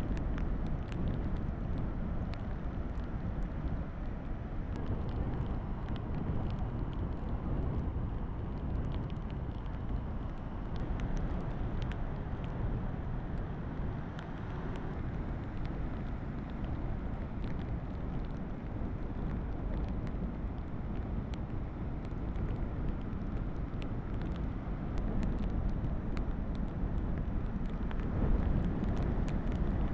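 Heavy hurricane surf breaking and washing ashore, a steady rush of waves mixed with strong wind buffeting the microphone, swelling louder near the end.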